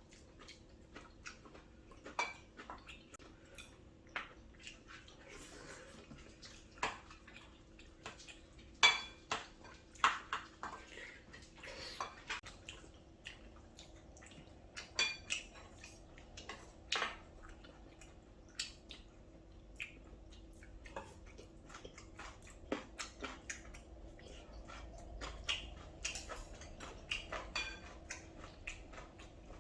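Metal cutlery clinking and scraping against plates and bowls during a meal, in scattered irregular clinks, a few of them louder and ringing briefly.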